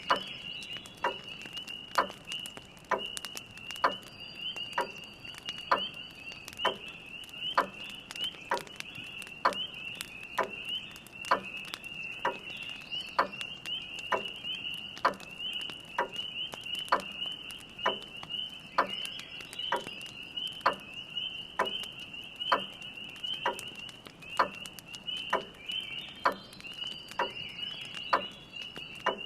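Grandfather clock ticking steadily, about one loud tick a second with softer ticks between, over a dense chorus of spring peepers heard as a continuous high shrill. Faint scattered crackles of a wood fire come and go.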